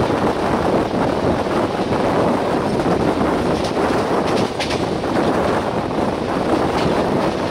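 Passenger train running at high speed, heard from an open coach door: a steady rush of wind over the microphone and the rumble of wheels on track, with a few sharper clatters about halfway through.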